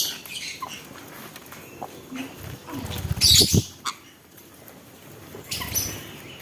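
Pet birds chirping and calling in short bursts among small clicks and rustles; the loudest burst comes about three seconds in, and more calls start near the end.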